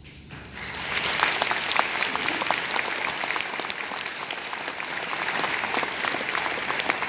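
An audience applauding. The clapping swells up about half a second in, with sharp individual claps close by standing out over the crowd.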